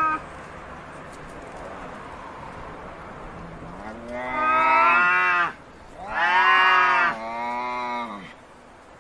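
Domestic cats in a standoff, yowling: two long, low, wavering yowls, the first about four seconds in, the second about six seconds in and running straight into a lower one.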